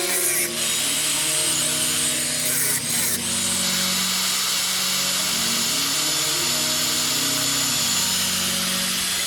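A power tool running steadily with a dense high hiss, briefly interrupted a couple of times in the first few seconds, under background music.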